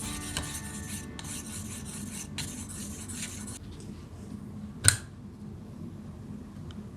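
Sharpening stone rubbing along a steel knife blade on a guided sharpening system, a steady rasping that stops a little over halfway through. A single sharp click follows about a second later.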